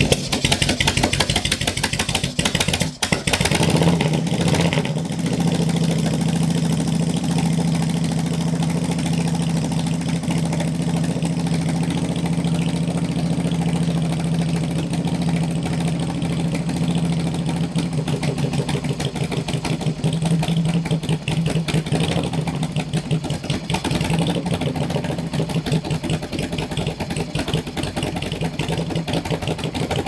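Harley-Davidson Shovelhead V-twin, just kick-started, running through open exhaust pipes. It runs unevenly and surges for the first few seconds, with a brief dip about three seconds in, then settles into a steady idle.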